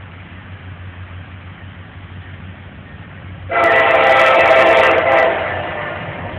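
Norfolk Southern diesel locomotive's air horn sounding one long chord about three and a half seconds in, loud and steady, then fading toward the end, over a low steady rumble. The blast warns the grade crossing ahead.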